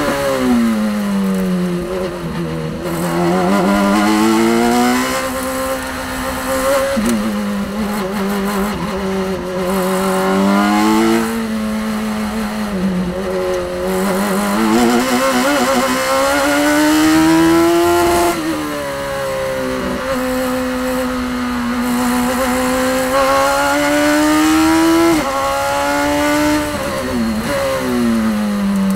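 Radical SR3 XX race car's 1500 cc four-cylinder engine heard from the open cockpit at racing speed. Its pitch climbs under throttle and sinks under braking, again and again, with sudden drops at gear changes.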